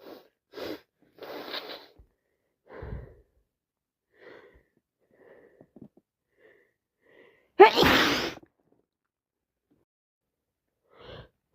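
A sick woman sneezing: a run of short, quieter breaths, then one loud sneeze about eight seconds in.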